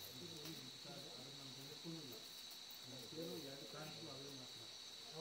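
A steady, unbroken chorus of crickets chirping, with faint voices of people talking low in the background.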